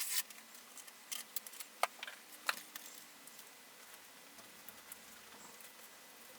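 Masking material being handled by hand: a short rustle at the start, then a few light scattered clicks and ticks over the next couple of seconds, then only faint hiss.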